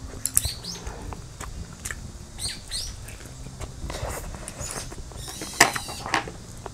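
Close-miked chewing and wet lip-smacking of a person eating braised chicken off the bone: irregular small clicks and smacks, the sharpest a little after five seconds in.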